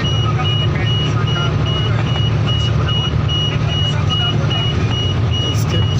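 Steady engine and road drone heard from inside a moving vehicle's cabin, with a high electronic warning beep repeating rapidly and evenly over it.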